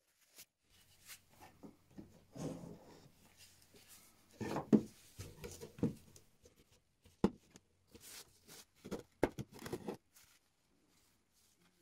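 Small steel blanks handled with gloved hands and set down on a wooden workbench: irregular knocks and scrapes with glove rustle between, the sharpest knock about halfway through.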